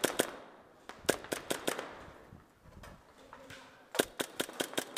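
Airsoft guns firing in quick runs of sharp cracks, with a short echo after each. A couple of shots come at the start, about six follow in quick succession a second in, and another run of about seven comes around four seconds in.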